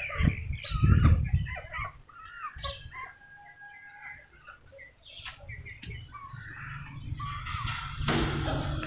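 Small hens clucking and calling in short, squiggly notes, mostly in the first half. A few low thuds near the start are the loudest thing.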